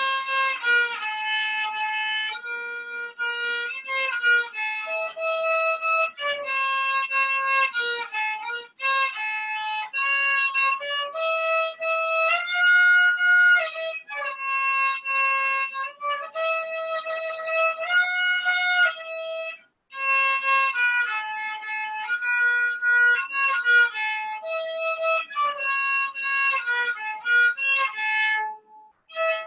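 A child playing a solo violin melody, a line of bowed held notes. It breaks off briefly twice, between phrases, and stops shortly before the end.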